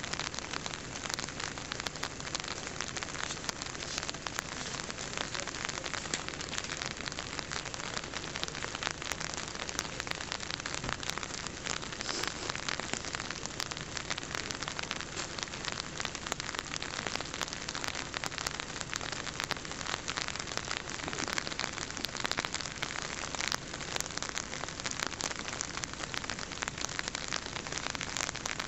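Steady, dense crackling hiss made up of many fine ticks, like light rain pattering on a surface, with no voices or other distinct sounds.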